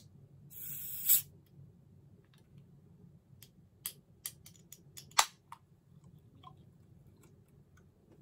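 Aluminium can of Strong Zero chuhai pulled open by its tab: a short fizzing hiss of escaping carbonation ending in a sharp crack about a second in. Several light clicks follow, with a sharper one about five seconds in, as the tab and can are handled.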